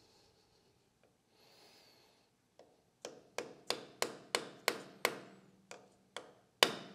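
A small hammer tapping a 4 mm transfer punch about ten times, roughly three light strikes a second, with the last strike the loudest. The taps mark drilling positions on a metal lathe casting.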